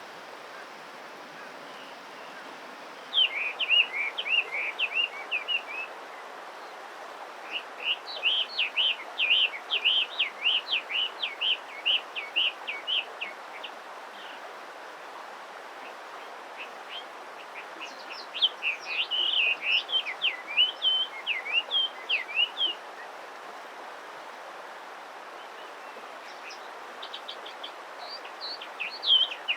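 Eastern spot-billed duckling peeping: rapid runs of short, high peeps in four bouts of a few seconds each, with pauses between, the calls of a duckling separated from its mother. A steady hiss of water runs underneath.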